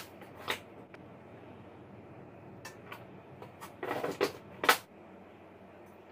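Kitchen handling sounds at a frying pan as a wooden spoon and seasoning bottles are picked up and used. There is a single click about half a second in, then a short run of clatter and knocks about four seconds in, ending in one sharp, louder click.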